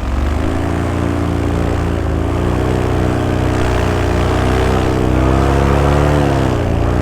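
Paramotor engine and propeller running under throttle, its pitch rising a little about two seconds in and dropping near the end, used to push the pilot forward against a strong wind while he ground-handles the wing.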